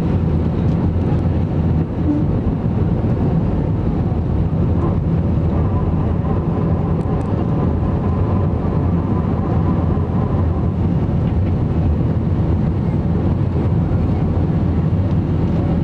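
Airbus A320's jet engines at takeoff thrust, heard inside the cabin over the wing: a steady loud rumble with a low hum, through the end of the takeoff roll, liftoff and the first part of the climb.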